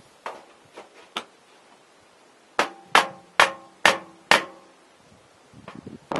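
Hammer striking the top of a tall metal vent pipe to drive it down into place through a roof hole: three light taps, then five hard blows about half a second apart, with a metallic ringing after the hard blows.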